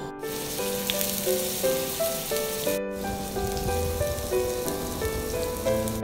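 Tofu cubes sizzling as they fry in hot oil in a nonstick wok, briefly cut off near three seconds, under background piano music.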